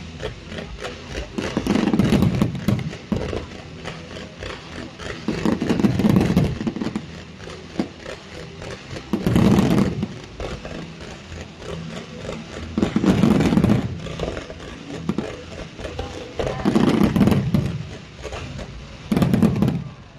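Fireworks display: a continuous dense crackle of bursting stars and ground barrage, with a deep boom from a shell burst about every three to four seconds.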